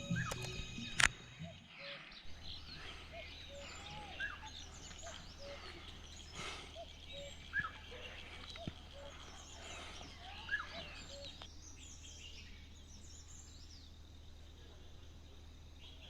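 Several wild birds chirping and calling: short rising chirps and whistles, with a short low note repeating about twice a second that stops past the middle. A steady low hum runs underneath.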